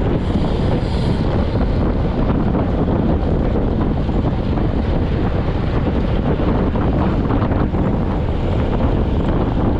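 Steady wind rush buffeting a road bike's handlebar-mounted camera microphone at close to 40 km/h.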